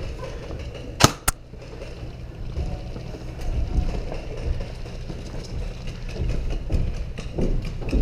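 Two sharp shots from an airsoft gun about a second in, a quarter second apart, over a steady low rumble with faint scattered ticks.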